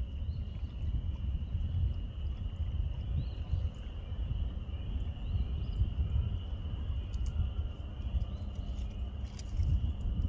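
Outdoor waterside ambience: a steady low rumble of wind on the microphone under a constant thin high tone, with a few short chirps from birds.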